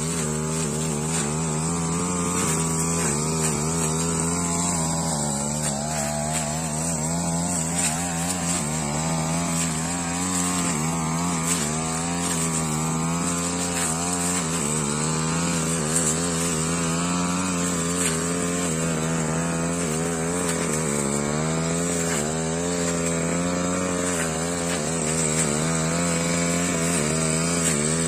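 Backpack brush cutter engine running at high revs as its blade cuts grass, the pitch dipping briefly a couple of times. The engine, which had been faltering before, is running properly again.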